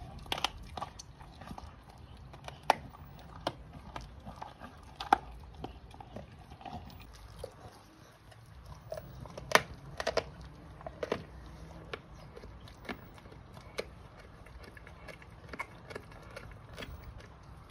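Staffordshire bull terrier gnawing and crunching a raw pork trotter: irregular sharp cracks of bone and gristle, the loudest about ten seconds in.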